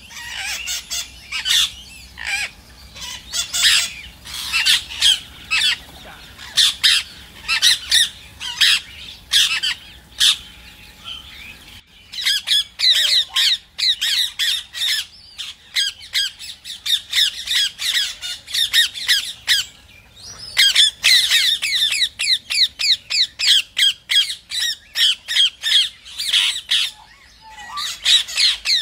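Rose-ringed parakeets calling in rapid runs of short, high-pitched squawks, densest about two-thirds of the way in.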